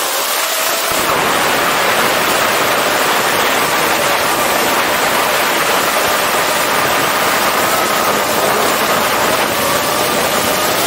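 DJI FPV drone's motors and propellers in forward flight: a steady faint whine buried in heavy wind rush, picked up by a 360° camera mounted on the drone itself.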